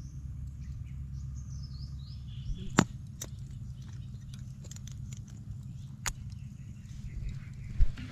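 A few sharp clicks from a glass spice jar with a wire-clasp lid being handled, over a low steady rumble. Faint descending bird chirps come in the first two seconds.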